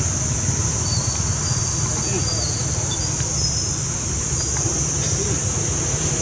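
Steady high-pitched drone of insects, such as cicadas or crickets, in chorus. A low rumble runs underneath it.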